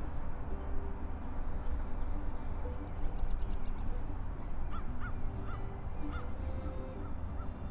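Steady low background rumble with a repeated short chirping animal call, about two chirps a second, starting about halfway through.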